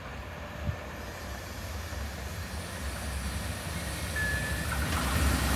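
Freight train hauled by an EH500 electric locomotive approaching, its rumble growing steadily louder as it draws near.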